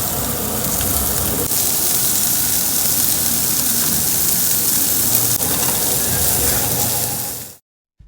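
Jeju black pork sizzling on a grill: a steady, dense frying hiss that cuts off suddenly near the end.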